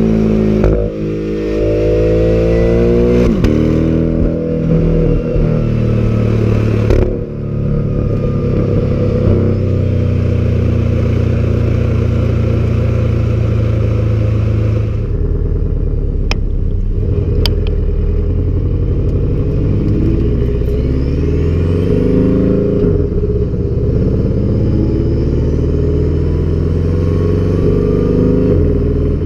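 A Porsche sports car's engine and exhaust pulling hard, with revs climbing and dropping back through quick upshifts early on. The engine then holds a steadier pitch, gives a couple of sharp ticks, and rises and eases off again.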